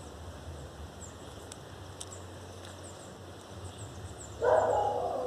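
Faint background with scattered small high chirps, then about four and a half seconds in a dog lets out a loud, drawn-out, wavering howl.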